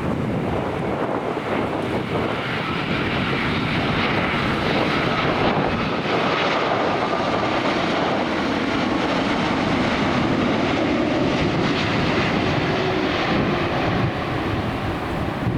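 Jet airliner on approach to land, its engines running with a steady rumble and a faint whine that grow a little louder through the middle.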